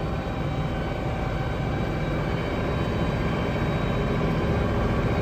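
International Harvester 1486 tractor's six-cylinder turbo diesel running steadily under load, heard from the cab, with the ear corn picker working through sticky mud. The level creeps up slightly toward the end.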